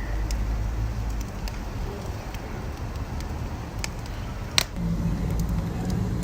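Wood fire burning: a steady low rumble with scattered crackles and snaps, and one louder pop about four and a half seconds in.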